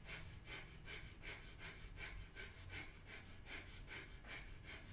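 Breath of fire: rapid, rhythmic, forceful exhalations through the nose, about three a second, steady and even.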